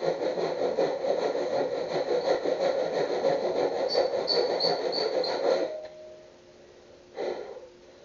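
A hand tool worked against a wooden board, making a continuous scraping noise. A high squeak repeats several times in the second half, and the scraping stops about six seconds in.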